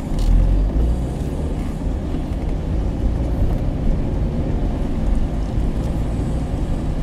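MG ZS being driven, its engine and road noise heard from inside the cabin as a steady low rumble.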